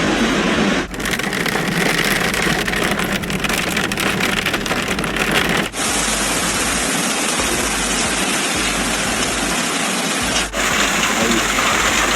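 Heavy hail and rain falling hard, a dense clatter of many small impacts. It cuts abruptly to a different take about a second in, again about halfway through, and once more near the end.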